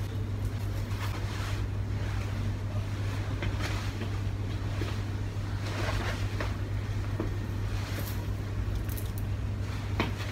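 A steady low hum runs throughout, under soft rustling and small knocks of denim clothes being handled and put on, with one sharper knock near the end.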